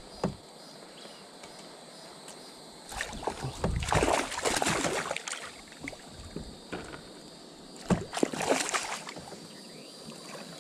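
Water splashing in two spells, about four and eight seconds in: a hooked smallmouth bass thrashing at the surface as it is brought to the kayak.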